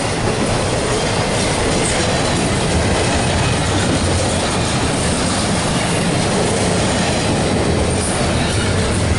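Double-stack intermodal freight train rolling past close by: steel wheels of container-laden well cars running on the rails in a loud, steady, unbroken rolling noise.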